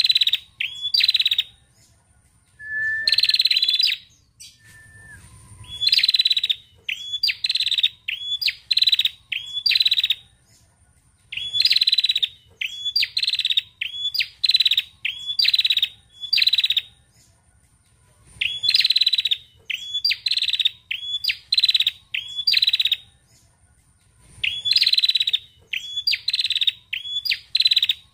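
Female tailorbird calling: rapid series of sharp, clipped notes, about three or four a second, in bursts of several seconds separated by short pauses.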